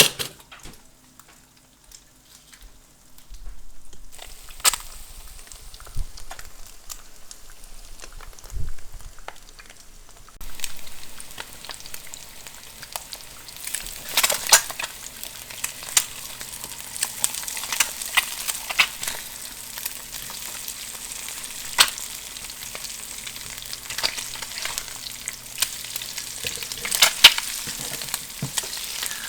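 Food frying in a pan: a steady sizzle with many crackling pops, which starts about ten seconds in after a few quieter clicks and knocks.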